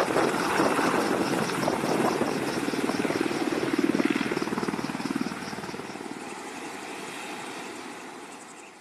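Boeing AH-64E Apache attack helicopter running on the ground, its rotor blades beating in a fast, even rhythm over the drone of the engines. The sound fades over the last few seconds.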